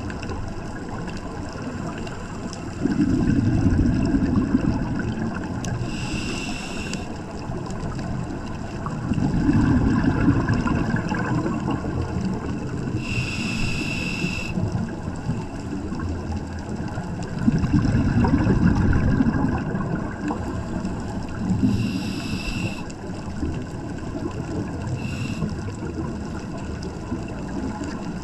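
Scuba diver breathing through a regulator, heard underwater: a few bubbling exhalations, each a low rumble lasting a couple of seconds, alternating with short hissing inhalations.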